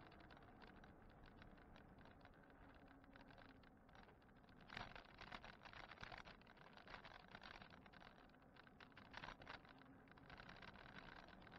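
Faint, dense clicking and rattling from an e-bike and its mounted camera jolting over the road surface while riding, over a low hiss of road noise. The rattles grow louder for a moment about five seconds in and again around nine seconds.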